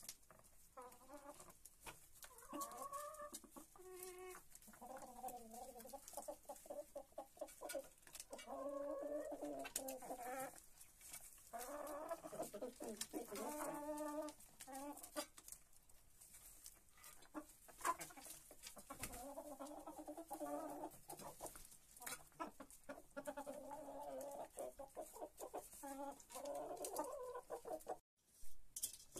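Several domestic hens clucking again and again while they feed, with frequent sharp taps of beaks pecking in a metal feed pan.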